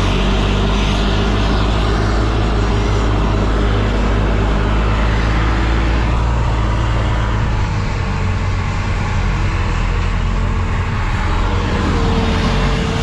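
Farm tractor's diesel engine running steadily and loudly.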